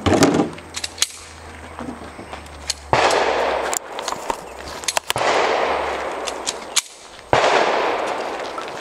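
A handgun chambered in .40 S&W firing several shots at uneven intervals, a second or two apart. Each shot is a sharp crack followed by a long fading tail.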